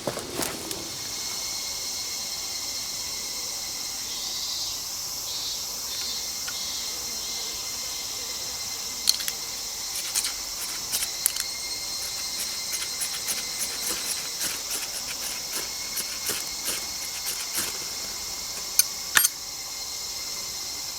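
Steady high chirring of insects, with a run of short sharp clicks and taps from about halfway in, two of them louder near the end.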